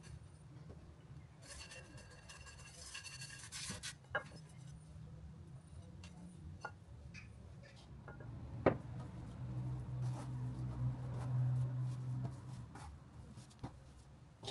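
Hand work with bread dough and flour: rustling and scraping as the dough is mixed and tipped from a bowl onto the floured table, with a few sharp knocks, the loudest about nine seconds in. A steady low hum comes in for a few seconds near the end.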